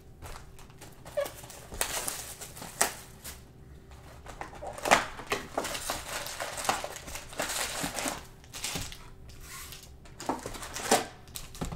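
Foil Panini Prizm and Mosaic football card packs crinkling and rustling as they are handled and stacked on a table, with scattered light taps.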